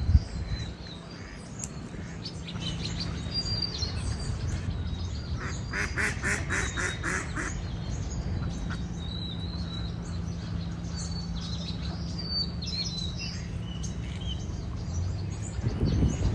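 Birds calling: a rapid run of about five evenly spaced calls a second around six seconds in, with short high chirps scattered throughout over a steady low rumble.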